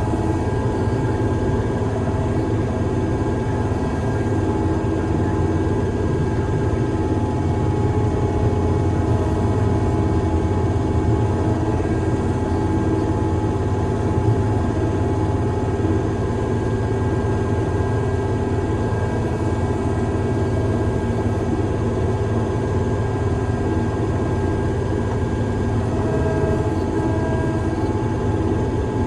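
Diesel engine of a heavy construction machine running steadily under constant load, a deep even drone with a steady whine over it.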